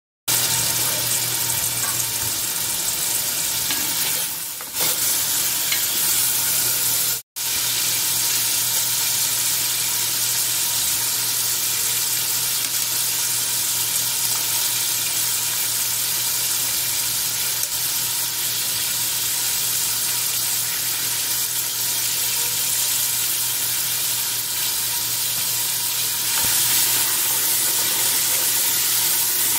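Chopped vegetables and bay leaves sizzling steadily in hot oil in a metal pot, stirred with a wooden spoon, over a faint low hum. The sizzle cuts out for a split second about seven seconds in.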